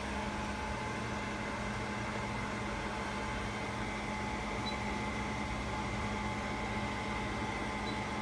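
BGA rework station's hot-air heater blowers and cooling fans running through a heating profile: a steady whirring hum with a few constant tones in it.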